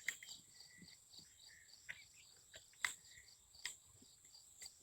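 Insects chirping steadily in the background, with a few sharp light clicks and knocks spread through.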